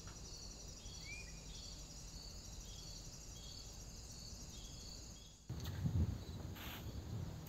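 Quiet outdoor ambience with a small creature chirping repeatedly, about twice a second. About five and a half seconds in, this gives way to a louder low rumble and handling noise, with a short hiss from an aerosol spray can squirted onto the cable reel's hub bolts near the end.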